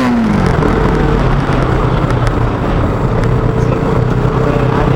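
KTM motorcycle engine running steadily under way, with wind noise over the camera. At the very start a short tone glides down in pitch.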